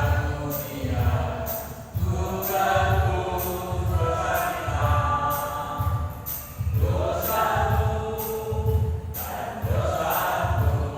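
Church choir of elderly singers singing together, over accompaniment with a steady low beat about every two-thirds of a second and regular light high taps.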